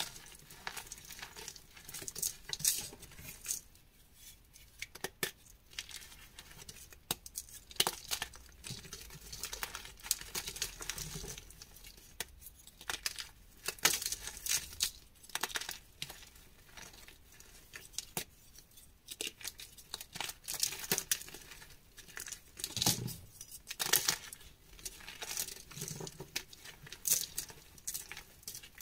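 Hands crushing and crumbling soft blocks of gym chalk, with irregular crunches and crackles and short hisses as powder sifts through the fingers.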